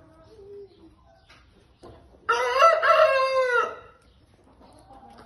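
A rooster crows once: a single loud call of about a second and a half, starting about two seconds in, its pitch dropping at the end.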